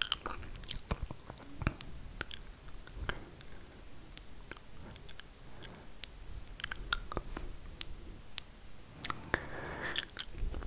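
ASMR mouth sounds: many sharp, irregular wet clicks and smacks of tongue and lips, with a soft breathy sound near the end.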